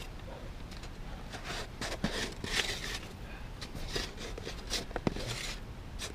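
Wet, icy avalanche snow being scraped and dug away by hand, an irregular run of short scrapes and crunches with a few sharp knocks, about two seconds in and again about five seconds in.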